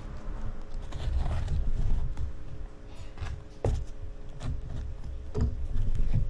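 A shipping parcel being handled and opened by hand: irregular scraping and rustling of packaging, with a few sharp knocks, the clearest a little past the middle.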